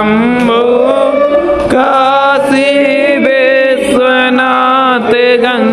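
Devotional mantra chant sung by a voice in long, wavering held notes over a steady sustained lower tone.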